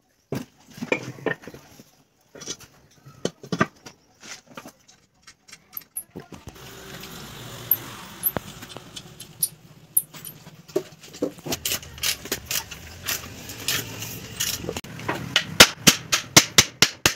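Metal clinks and knocks of spanners and bolts against the cast-iron pump motor housing during assembly, with a quick run of clicks near the end. A low steady hum comes in about six seconds in.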